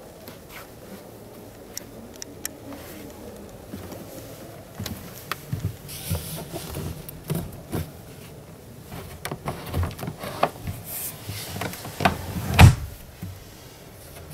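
Irregular knocks, clicks and rubbing that grow busier from about five seconds in, with one heavy thump near the end.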